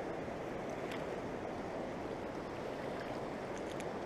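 Steady rush of a fast-flowing river running high, with a few faint clicks.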